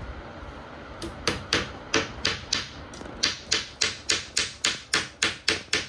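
A hammer driving a nail into a wooden frame: quick, even strikes at about four a second, starting about a second in, with a short pause near the middle.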